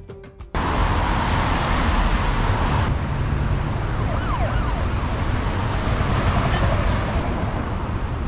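Steady city street traffic noise, with an emergency-vehicle siren wailing up and down a few times about halfway through.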